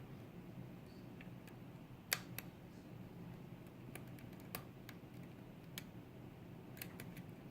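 Faint, irregular metallic clicks of a lock pick working the pin stack of a pin-tumbler challenge lock under light tension, with the loudest click about two seconds in, over a low steady hum.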